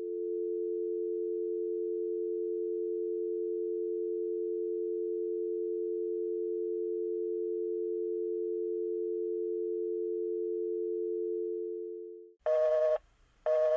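Telephone dial tone: two steady tones blended into one even hum on an open line, cutting off about twelve seconds in. Pulsing busy-signal beeps follow, about one a second, two of them before the end.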